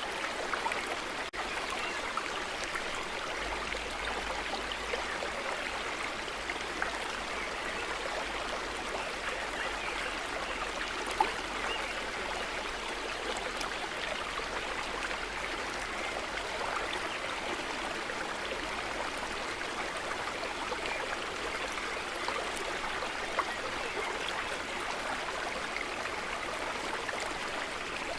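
A brook flowing steadily over stones, an even rush of running water with a few faint splashes.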